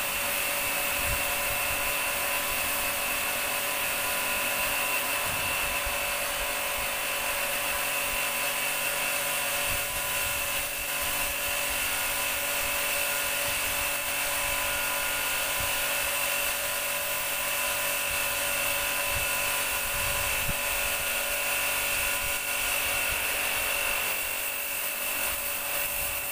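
Pressure washer pump running steadily with a constant whine, its high-pressure water jet hissing onto wet pigs and concrete.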